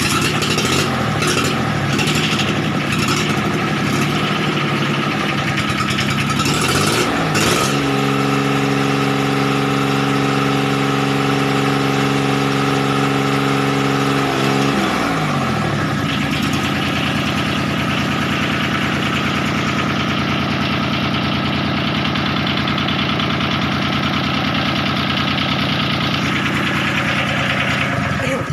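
Yanmar three-cylinder 13 hp marine diesel engine being test-run. It runs unevenly with some clatter at first, is revved up to a steady higher speed about eight seconds in, then is throttled back around fifteen seconds to a lower steady run.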